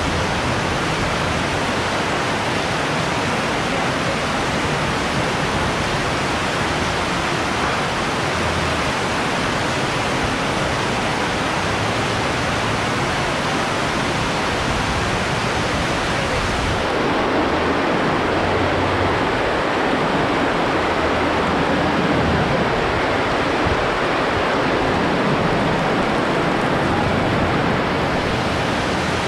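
Heavy tropical downpour: a dense, steady hiss of pouring rain. A little past halfway the hiss loses its highest part and becomes fuller and lower.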